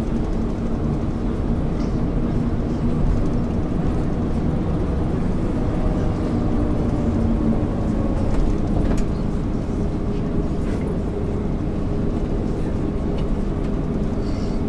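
MAN ÜL 353 diesel bus under way: steady engine and running noise, with a faint engine tone that shifts slightly in pitch.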